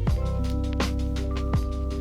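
Background music with a steady electronic beat: a deep kick drum about every three quarters of a second over held bass notes, chords and hi-hats.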